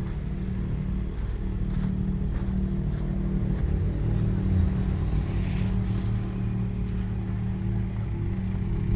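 Car engine idling steadily close by, a low hum with a slight change in revs about four to five seconds in.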